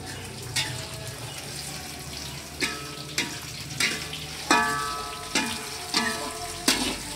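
Metal spatula scraping and knocking against a metal wok during stir-frying, about eight strokes that each ring briefly, over a steady sizzle of frying food.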